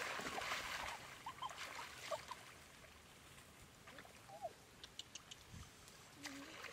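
Hands splashing and sloshing in shallow muddy water while groping for fish, loudest in the first second and then softer. A few short chirps come through now and then.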